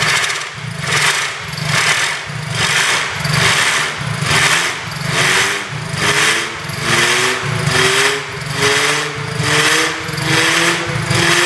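Ingersoll-Sergeant steam-driven air compressor running at a steady, slow beat, chuffing about once a second, while its compressed air blows through a hose nozzle onto a small fan. From about four seconds in, a whine from the fan spinning up rises slowly in pitch.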